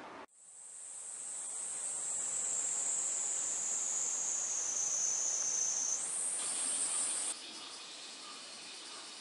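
Cicadas singing in summer trees: a loud, high, shrill drone that slowly sinks in pitch, jumps higher about six seconds in, then cuts off suddenly about a second later, leaving a fainter insect drone.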